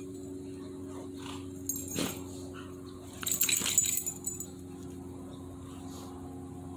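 Golden retrievers at rough play: brief dog growl and scuffle noises, the loudest burst coming about three to four seconds in, over a steady low hum.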